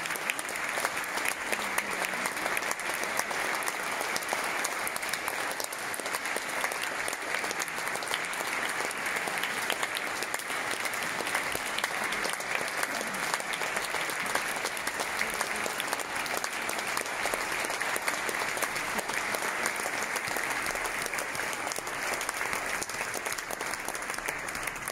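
Steady applause from a large audience, many hands clapping densely and evenly.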